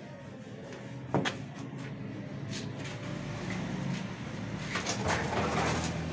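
A single sharp knock about a second in, then a few seconds of scraping and rustling handling noise near the end, over a low steady hum.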